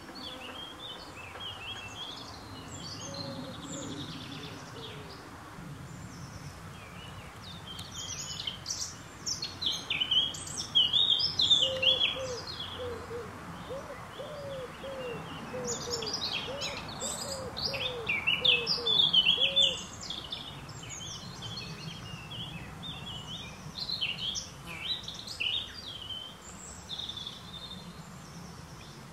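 Several songbirds singing and chirping in a garden, in busy twittering bursts that swell twice, with a run of short, low, evenly repeated call notes in the middle, over a faint steady outdoor background hiss.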